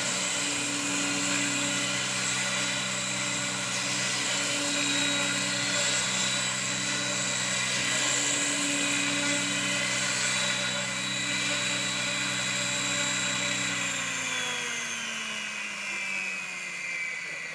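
X-Cell Whiplash RC helicopter running on the ground at steady rotor speed: a high mechanical whine over the rotor's hum as it creeps about on its skids. About fourteen seconds in it winds down, the pitch falling steadily as the rotor slows.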